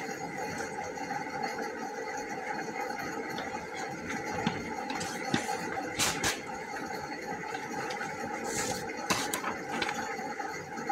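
Sheets of drawing paper handled and flapped, with sharp rustles about six seconds in and again about nine seconds in, over a steady background hum.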